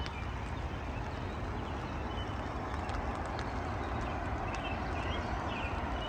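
Steady outdoor background rumble, heaviest in the low end, with a few faint short high chirps.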